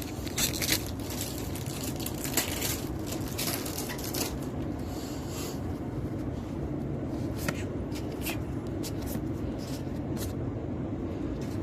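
Magic: the Gathering cards being handled: short slides, flicks and taps of cards against each other, with a brief papery rustle about five seconds in, over a steady low background hum.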